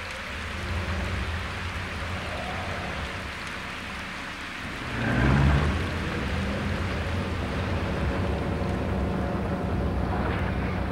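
Steady rain with a low rumble underneath, swelling louder for a moment about five seconds in.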